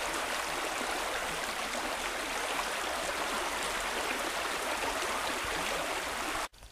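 Shallow stream running steadily over a rippled riffle. The water sound cuts off abruptly just before the end.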